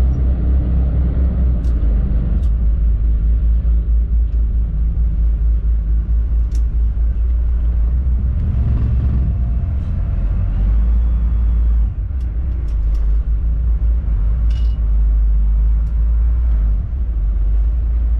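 Small passenger boat's engine rumbling steadily, heard from inside the cabin, with a few faint clicks and knocks over it.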